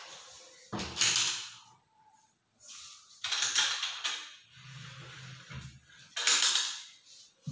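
Wooden under-bed storage drawers slid open and shut, three scraping slides a few seconds apart.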